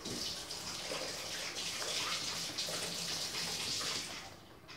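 Water running in a steady hissing stream, dying away about four seconds in.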